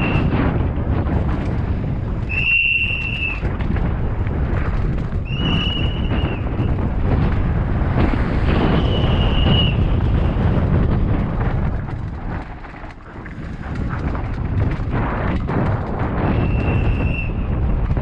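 Downhill mountain bike ridden fast over steps and rough dirt, heard from a helmet camera: heavy wind on the microphone mixed with the rattle and knocks of the bike over the ground. A steady high tone sounds four times, about a second each, near 3, 6, 9 and 17 seconds in.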